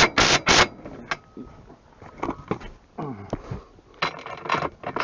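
Metal clicks and clanks of a socket wrench working the bolts on solar panel mounting rails: a quick cluster of sharp clicks at the start and another about four seconds in.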